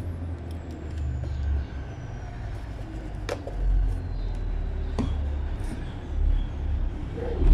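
A steady low rumble with a few sharp clicks, about three and five seconds in, as multimeter test leads and an alligator clip are handled on the bench.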